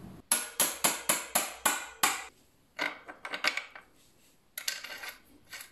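Metal parts of a motorcycle wheel assembly being tapped and handled: a run of about eight sharp metallic taps, about four a second, then a few quicker clinks and a short scraping rattle near the end.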